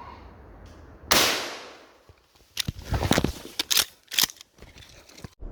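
A single rifle shot at a pig, sharp and loud, with its report dying away over most of a second. About a second and a half later comes an irregular run of sharp crackles and knocks.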